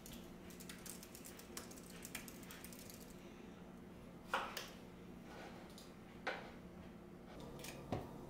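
Typing on a slim, low-profile wireless computer keyboard: a quick run of light key clicks for about three seconds, then a few separate louder taps, over a faint steady low hum.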